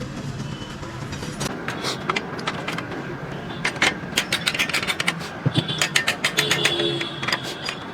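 Irregular runs of sharp knocks and clanks, starting about a second and a half in and coming thickest near the end, over a low steady engine rumble. They fit hand tools working on a motorcycle wheel during a tyre change.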